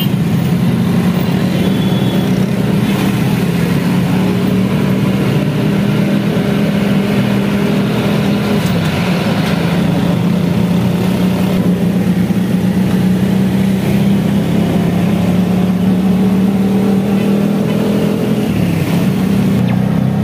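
Steady engine drone and road noise heard from inside a moving vehicle in city traffic.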